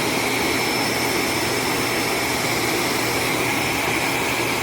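Vacuum cleaner motor running steadily at full speed: a loud rushing of air with a high, even whine over a low hum.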